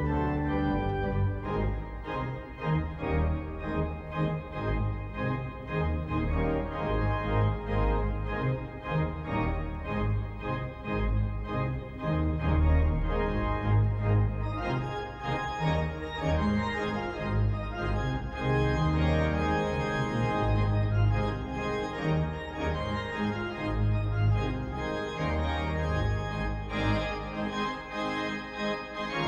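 Pipe organ playing full, sustained chords over deep pedal bass notes, the sound growing brighter about halfway through.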